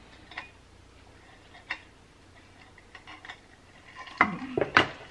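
Someone drinking through a straw from an insulated tumbler: soft sips and scattered mouth clicks, then a few louder clicks and mouth sounds near the end.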